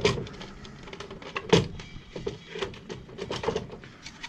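Plastic parts of a car vacuum's housing being handled and refitted: scattered clicks and knocks, with a sharper knock at the start and another about a second and a half in.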